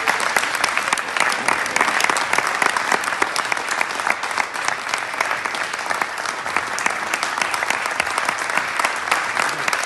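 Audience applauding: many hands clapping densely and without a break.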